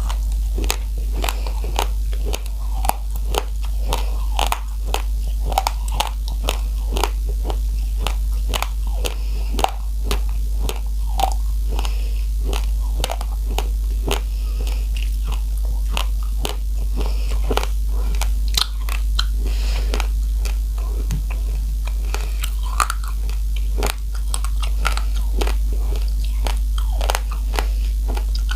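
Close-miked crunching of raw, uncooked rice grains being bitten and chewed: rapid, irregular sharp cracks, several a second, over a steady low hum.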